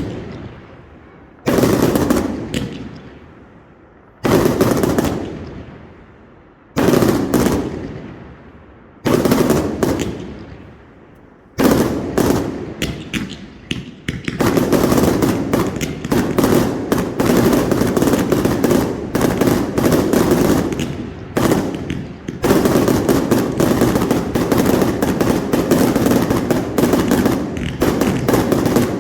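Professional category F4 display fireworks at close range: five heavy booms about two and a half seconds apart, each trailing off, then from about halfway a dense, rapid barrage of shots that keeps on.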